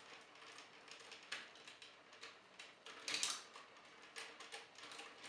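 Faint clicks and light rubbing of the hard plastic parts of a transforming Megazord toy as its arms are dislocated and brought together, with a couple of slightly louder clicks and a short scrape about a second and three seconds in.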